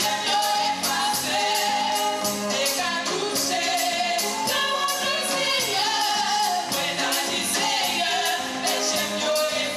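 Women singing a gospel song into microphones, backed by a band with a steady beat.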